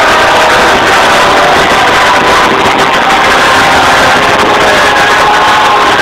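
A live rock band playing loudly and without a break, recorded on a mobile phone from the crowd.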